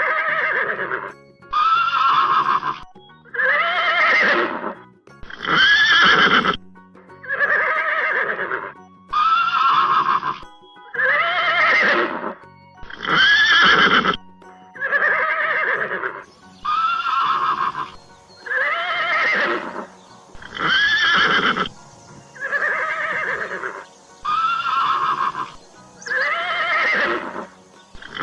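Horse neighing over and over: short whinnies with a rising-then-falling pitch, one about every second and a half with brief gaps between them.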